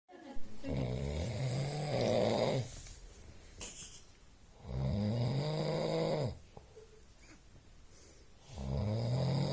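Snoring: three long pitched snores at an even pace, about four seconds apart.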